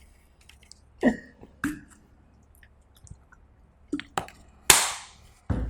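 Short throat and mouth sounds from a person: two sharp throat sounds a little after a second in, a few small mouth clicks near four seconds, then a breathy exhale that fades out.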